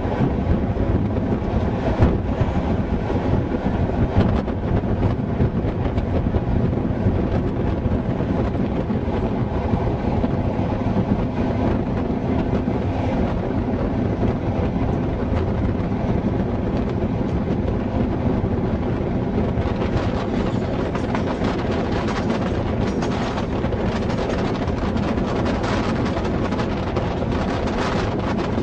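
Class 421 slam-door electric multiple unit running at speed, heard from an open window: a steady rumble of wheels on rail. In the last third a quick run of sharp clicks comes from the wheels crossing rail joints and pointwork.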